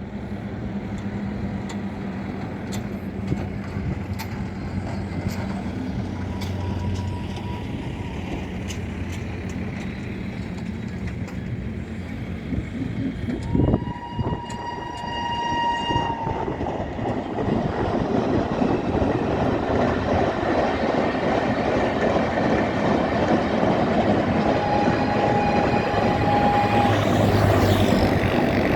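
Indian Railways WAP7 electric locomotive sounding its shrill horn as the train approaches: a faint short honk, then a loud honk of a couple of seconds about halfway, and another shorter honk near the end. Under the horn, the rumble of the train on the track grows steadily louder as it nears.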